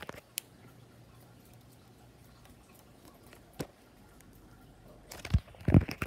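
A few isolated sharp clicks, then a cluster of loud thumps and knocks near the end, from the phone being handled and swung.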